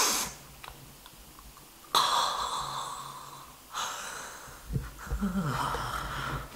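A man's breathy sounds while nuzzling a cushion: several long sniffs or sighs through the nose, then a low murmur near the end.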